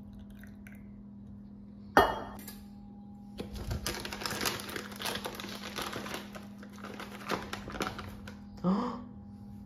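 A sharp knock about two seconds in, then about five seconds of dense crinkling and rustling.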